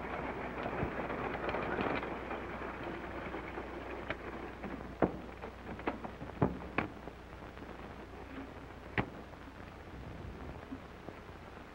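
Early open touring car running on a dirt track, its engine and running noise fading over the first two seconds. After that, half a dozen sharp separate knocks and clicks sound over the steady hiss of an old film soundtrack.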